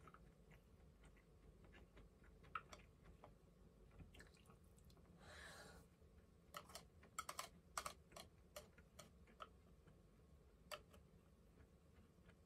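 Quiet eating sounds: faint, scattered clicks of chopsticks against a plastic rice container, several in quick succession about halfway through, with quiet chewing.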